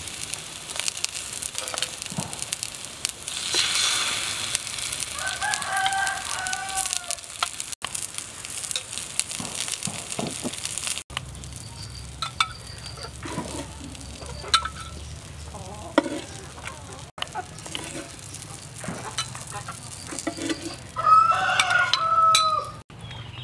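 Eggplant slices frying in oil in a pan with a steady sizzle and occasional clicks of a spatula. A rooster crows twice, once about five seconds in and again, louder, near the end.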